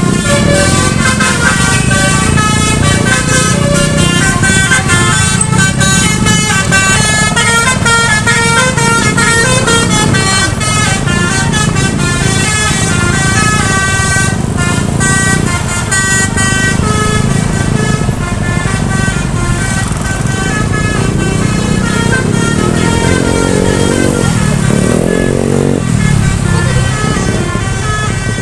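Bus 'basuri' melody horn, a multi-tone horn playing a tune in quick stepping notes, loud and continuous over a low rumble of engine and road. Near the end, a few seconds of tones sweep up and down in pitch.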